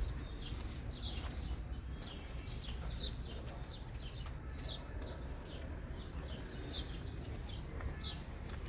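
Small birds chirping repeatedly in short, falling chirps, about one or two a second, over a low steady rumble of wind and outdoor noise.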